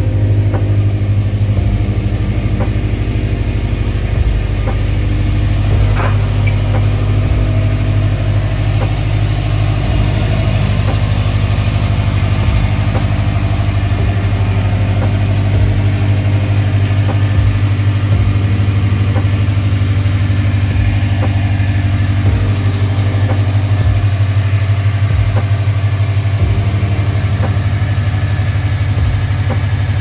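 2012 Subaru WRX STI's turbocharged 2.5-litre flat-four (EJ257) idling steadily.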